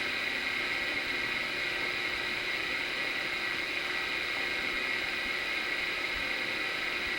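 Steady background hiss with no distinct sounds standing out.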